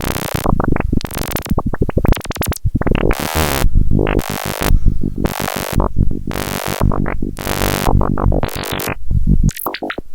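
Eurorack modular synthesizer patch playing: filters pinged by square and pulse waves, with one modulating oscillator now in audio range, give a stuttering stream of short pitched blips, clicks and harsh noisy bursts of uneven length.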